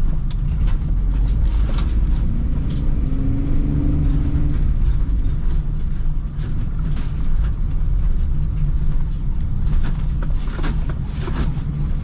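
Steady low engine and road rumble heard inside a slowly moving vehicle, with scattered clicks and creaks that come more often near the end.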